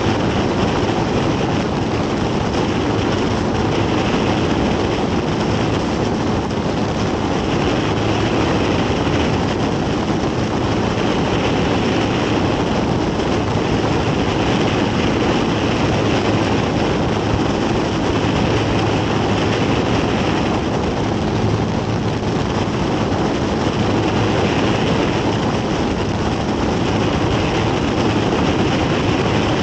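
Murphy Renegade biplane in cruise flight, heard from on board: a steady engine and propeller drone under heavy rushing wind noise that does not change in level.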